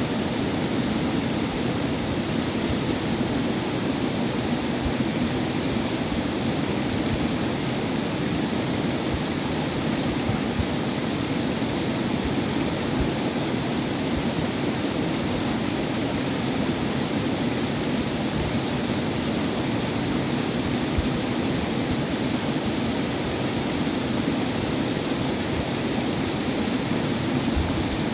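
River rapids: fast, shallow water rushing white over and around boulders, a steady, unbroken rush with no let-up.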